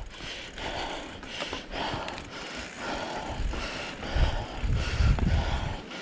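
Mountain bike creeping down a rocky trail: tyres crunching over rock and the frame rattling in short, uneven bursts. A low rumble swells about four seconds in.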